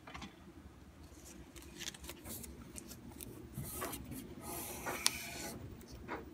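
Abrasive paper wrapped round a wooden dowel rubbed back and forth against the inside curve of a spoon-carving gouge's steel blade, sharpening it: a scratchy hiss on each stroke, faint at first and louder from about two seconds in, with one sharp tick near the end.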